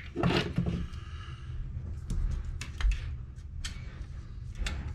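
A few light clicks and taps of small tools and parts being handled on a workbench, over a low steady hum.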